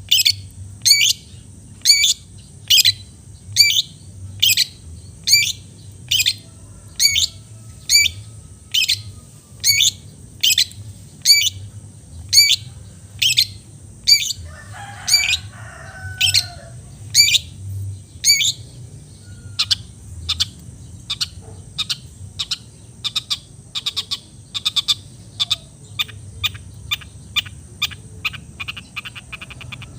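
Long-tailed shrike (cendet) calling over and over: loud, sharp, high notes that sweep downward, about one and a half a second. Past the halfway mark they turn shorter and quicker.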